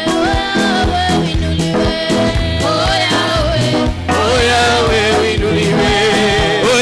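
Gospel worship music: singers singing a melody into microphones over amplified backing music with a bass line and regular drum hits.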